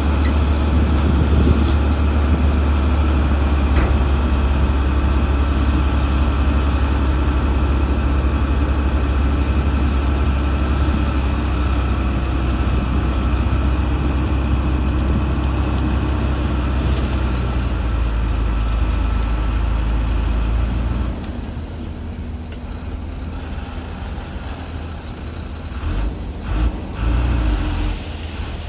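Heavy diesel engine of earthmoving machinery running hard with a steady low drone. About twenty seconds in it drops abruptly to a quieter, lower running, with a few brief surges near the end.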